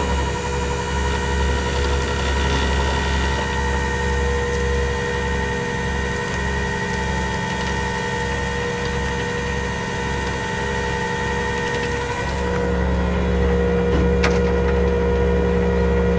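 Rollback tow truck's engine running steadily, its note shifting about twelve seconds in.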